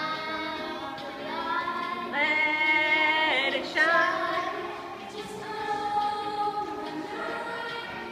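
A group of young girls singing a pop song together, loudest from about two seconds in.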